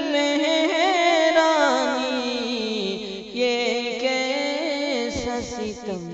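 A man singing a line of an Urdu marsiya, a mourning elegy, in long held notes that waver and slide in pitch, with a short break about halfway through before the next phrase.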